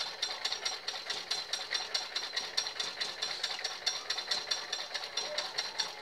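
Old hand-cranked sewing machine stitching cloth: a fast, even mechanical clatter from the needle mechanism, about six clicks a second.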